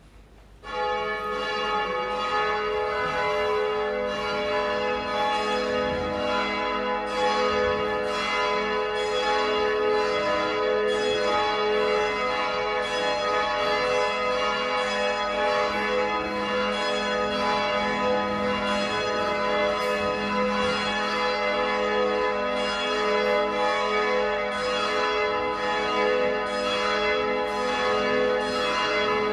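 Church bells ringing, starting suddenly about a second in and going on as a continuous overlapping peal, each new strike renewing the ringing tones.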